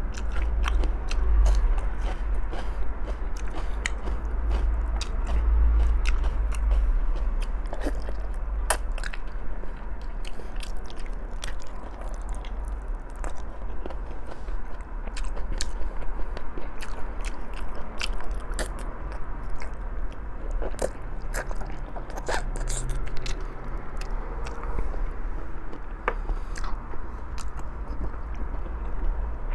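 A person chewing and biting on balbacua, stewed pig's feet, close to the microphone, with many small wet clicks scattered throughout. A steady low hum runs underneath.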